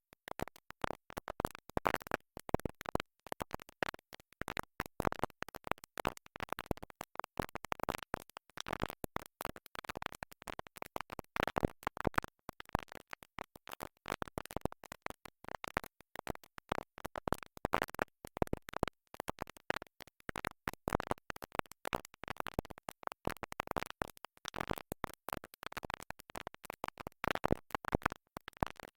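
A stuck record: music skipping and stuttering, a tiny fragment cut off and repeated over and over, with rapid scratchy clicks.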